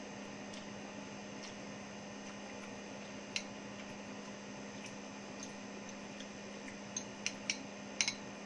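Steady air-conditioner hum with a few light clicks of utensils against dishes while eating, several close together near the end.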